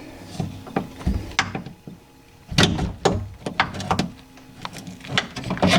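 Scattered clicks, knocks and rattles of metal and plastic parts being worked by hand inside a 2001 VW Passat B5's door while fitting a part into the door lock mechanism, with a denser clatter about halfway through.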